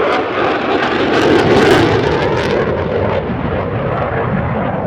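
AV-8B Harrier's Rolls-Royce Pegasus turbofan running at taxi power: loud, steady jet engine noise that swells briefly about a second in.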